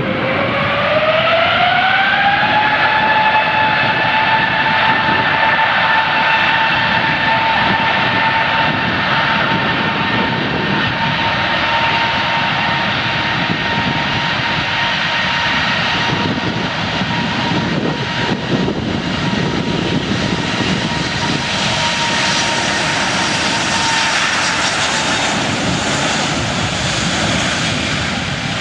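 Airplane jet engine running: a turbine whine rises over the first couple of seconds, then holds steady over a loud, even rushing roar. The whine fades out near the end while the roar carries on.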